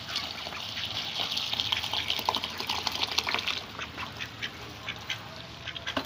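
Ducks dabbling and splashing at freshly set-down grain and water, a run of wet pecking and slurping sounds that is busiest in the first half.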